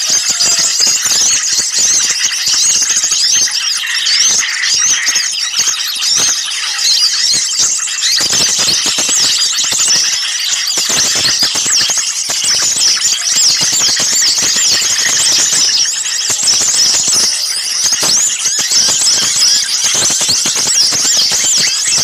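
A dense, agitated chorus of many small songbirds, mixed species, calling over each other in rapid high chirps and trills. It is a noisy bird-lure recording of the excited, mobbing-type calls used to draw small birds in.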